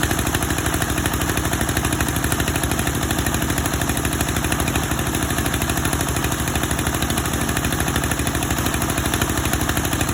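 Wood veneer grinding machine running steadily, with a fast, even pulsing beat and a low engine-like hum.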